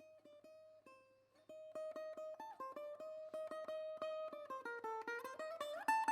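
Background music: a plucked string instrument in the mandolin or ukulele family playing a melody in quickly repeated notes, about five a second. It starts soft, grows louder about a second and a half in, and the tune climbs near the end.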